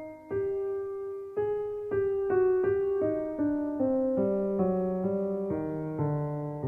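Background piano music: a gentle melody of struck notes over a bass line that steps downward.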